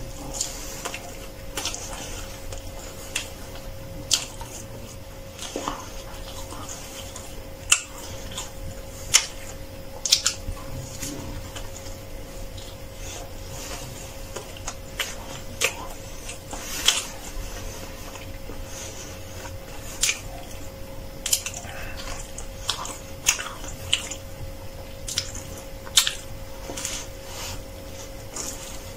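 Close-up biting and chewing of a crisp-baked flatbread sandwich stuffed with vegetables (cai jia mo): sharp, irregular crunches of the crust and wet mouth sounds as it is chewed.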